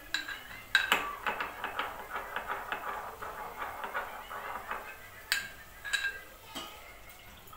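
Metal mortar and pestle being pounded: a run of quick, ringing metal strikes, then a few single clinks near the end.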